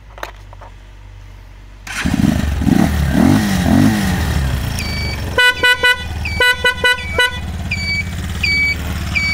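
The 200 cc engine of a Xunjie cargo motor tricycle starts about two seconds in and runs at idle, its pitch wavering at first. Midway the horn sounds in two quick series of short toots. Near the end the turn-signal beeper chirps about once every 0.6 seconds.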